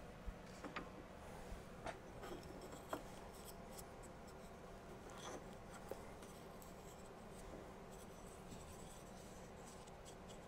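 Quiet room with a faint steady hum and a few soft, short clicks and rubbing sounds, mostly in the first half.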